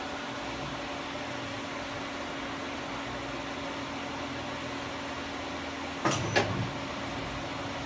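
Johnford SV24 CNC vertical machining center running with a steady hum, then two sharp metallic clunks in quick succession about six seconds in.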